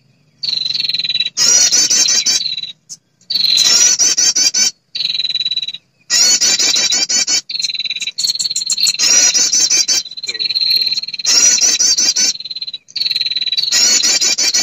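Recorded female prinia (perenjak) lure call, used to draw in males. It is a fast, buzzy chattering trill over a steady high note, played in bursts of one to two seconds with sudden short gaps of silence between them.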